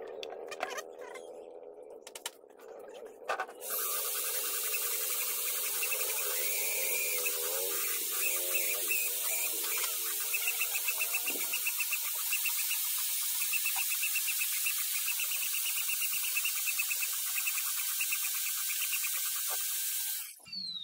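A workshop tool running with a loud, steady hiss. It starts about three and a half seconds in and cuts off sharply near the end.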